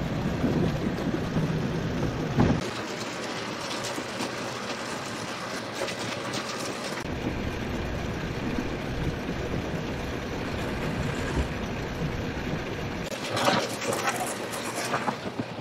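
Potato-handling machinery running with a steady rattling noise as cut seed potatoes are loaded into a potato planter. A deeper running hum underneath drops away about two and a half seconds in, comes back around seven seconds, and fades again near the end.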